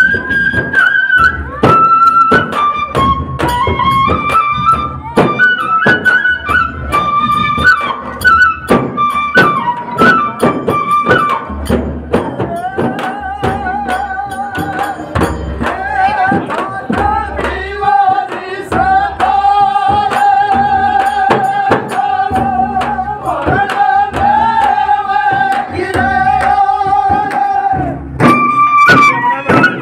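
Chang frame drums beaten in a steady dhamal rhythm under a flute melody played through loudspeakers: Rajasthani Holi folk music. About halfway through, the melody drops lower into long, wavering held notes.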